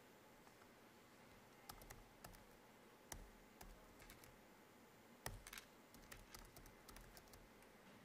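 Faint, irregular keystrokes on a computer keyboard as a web address is typed, starting a little under two seconds in.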